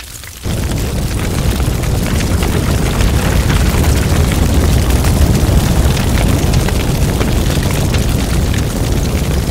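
Firestorm sound effect: a loud, dense low rumble full of crackling that starts suddenly about half a second in and keeps going.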